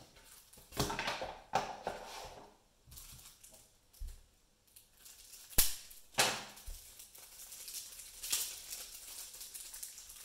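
Hands handling shrink-wrapped card decks: plastic wrap crinkling and rustling, with a few sharp clicks, the loudest around the middle.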